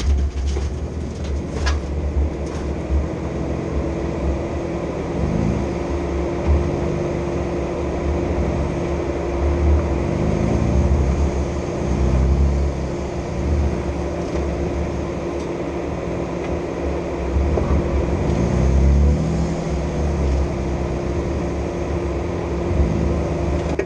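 Off-road vehicle engine running, its pitch rising and falling several times with the throttle over a deep rumble, with a steady whine throughout. A few sharp knocks come in the first couple of seconds.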